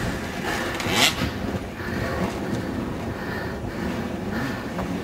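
Enduro dirt-bike engines running in the distance under wind noise on the microphone, with a brief louder rush of noise about a second in.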